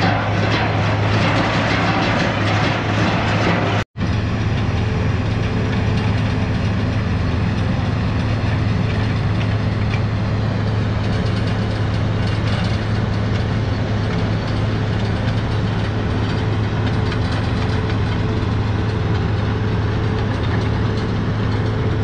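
Heavy diesel construction machinery running steadily, a constant low engine drone, with a brief cut-out about four seconds in.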